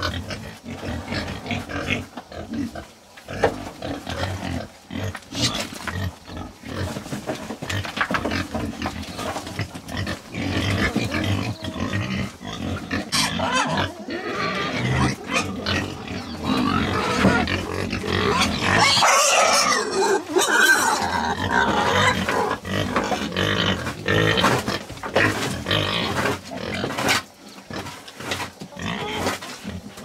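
Pigs grunting and squealing, loudest through a stretch of high squeals just past the middle.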